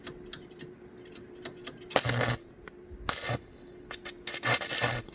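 Electric arc welding in short bursts: the arc is struck three times, each time crackling and humming for a fraction of a second to under a second, with scattered ticks before the first weld.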